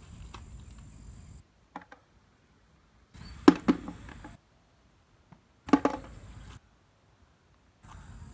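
Two short clusters of sharp clicks and knocks, about three and a half and six seconds in, from snails and debris being handled at a plastic bucket. Behind them is faint outdoor ambience with a steady high whine, which drops out to dead silence between the clusters.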